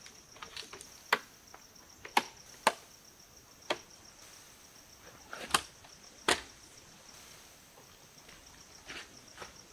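A run of sharp wooden knocks, about six at uneven intervals and mostly in the first two-thirds, typical of wood being chopped or split at camp. Insects chirr steadily and evenly behind them.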